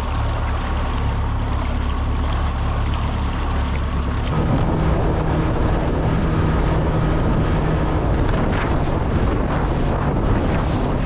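A small boat's motor running steadily under way, with wind buffeting the microphone and water rushing past the hull. About four seconds in, the engine note jumps higher and the wind and water noise grows louder.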